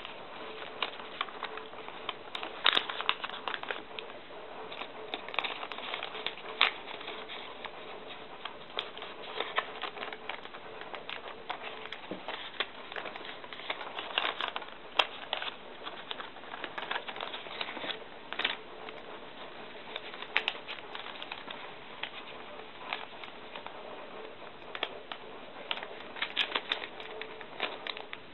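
Thin phonebook paper crinkling and crackling in irregular little snaps as it is creased and folded by hand.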